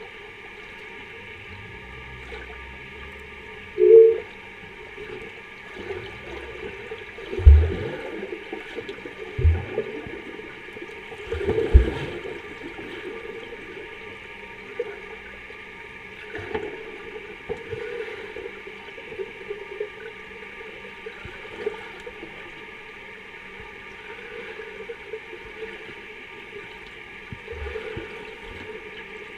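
Swimming pool heard from underwater: a steady muffled hiss and gurgle with a few heavy low thuds and splashes from swimmers at the surface, the biggest in the first twelve seconds, then smaller knocks.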